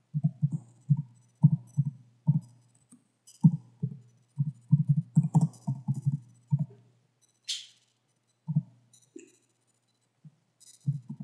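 Computer keyboard typing: a quick, irregular run of key presses that thins out after about seven seconds, with a faint steady hum underneath.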